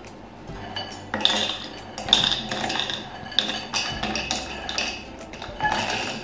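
Small hard Amarettini biscuits poured from a glass bowl into a plastic food-chopper bowl, rattling and clattering against the plastic in several bursts from about a second in.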